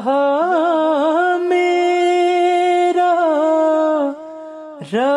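A solo male voice chanting a noha, an Urdu lament, holding one long sustained note with small ornamental wavers. The line fades about four seconds in, and a new phrase starts with a swoop just before the end.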